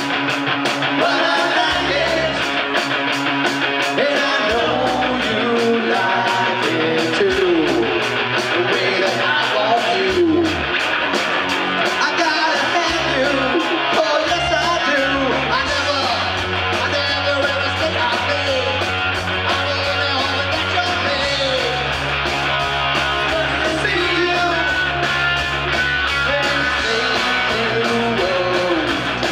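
Rock band playing live: a man singing over electric guitar, bass guitar and a steady drum beat.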